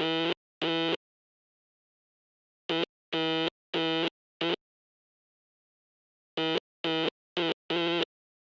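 Morse code sounded as a low, buzzy electronic tone, keyed in short dots and longer dashes. Two dashes at the start, then a group of four (dot, dash, dash, dot) a few seconds in, then another group of four near the end, with pauses between the groups.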